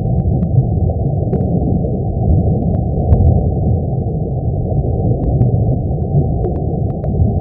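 Sonification of the Sun: solar signals shifted up into the range of hearing, heard as a steady low rumbling hiss with nothing above a low ceiling, dotted with a few faint ticks.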